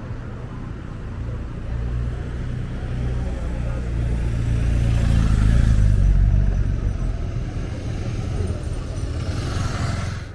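Street traffic: a motor vehicle's engine rumble building to its loudest about midway, then a motorcycle passing close near the end.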